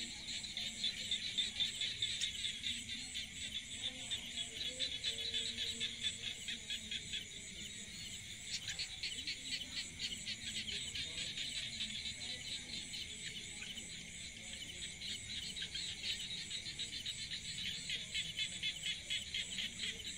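A steady chorus of calling insects: a dense, rapidly pulsing shrill trill.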